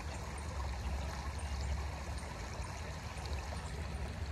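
Steady rush of creek water running, with a low rumble underneath.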